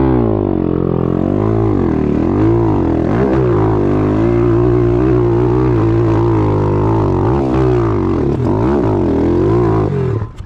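Stomp pit bike engine revving up and down hard as it climbs a steep rocky hill, its pitch rising and falling over and over. The engine note drops away abruptly near the end.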